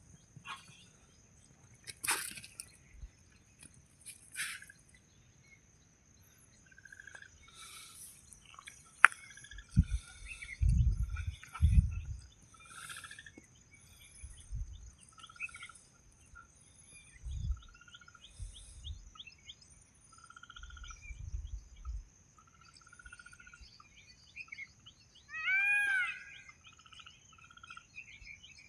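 Small birds chirping and calling with many short chirps and quick sweeping notes, over a steady high-pitched tone. Several short low rumbles come in around the middle.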